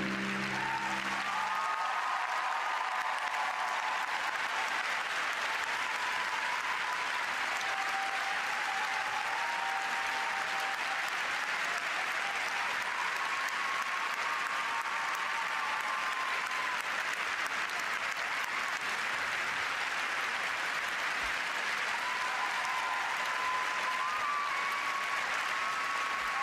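Large arena crowd applauding steadily. The skating program's music ends about a second in.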